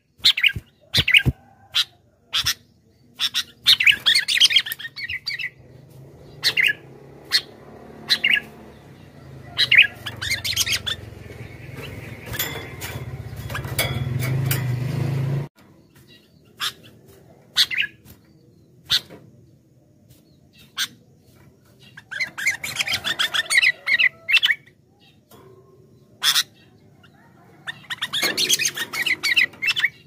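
Sooty-headed bulbul calling: bursts of chirping and harsh chattering notes in clusters, with single sharp notes between them. A low rumble builds from about six seconds in and cuts off suddenly about halfway through.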